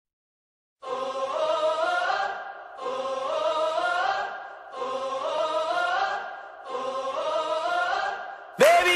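Opening of a pop-rock song: a layered a cappella vocal chant repeated as four similar phrases of about two seconds each, starting about a second in. Near the end, louder singing with more going on comes in.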